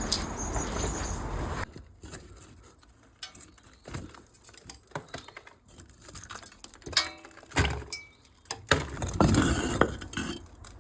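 Scattered knocks, clinks and short scrapes of things being handled, after a steady rushing noise that cuts off suddenly about two seconds in.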